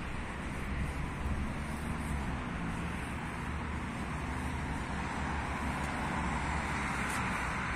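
Steady hum of city road traffic, with cars driving past. It grows a little louder in the second half.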